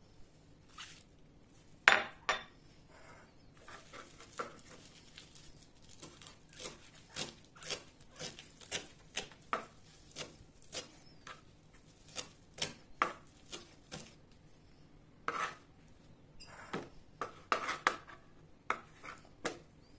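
Kitchen knife chopping fresh parsley on a plastic cutting board: a run of irregular taps of the blade on the board, often one or two a second, with a few louder knocks, the loudest about two seconds in.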